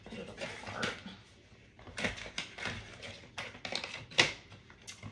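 Irregular clicks, knocks and rustling of a gray plastic folding laundry basket being handled, with one sharp knock a little after four seconds in as the basket is set down or knocked.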